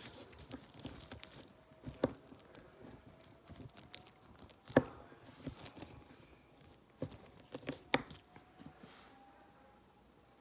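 Scattered light taps and clicks of plastic Play-Doh tools and molds being handled on a table, the sharpest about five and eight seconds in, over a faint steady tone.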